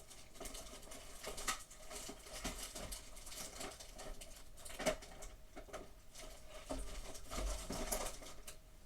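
Handling of slime-making supplies such as a glue bottle and containers: scattered irregular clicks and crackles, with a faint steady hum underneath.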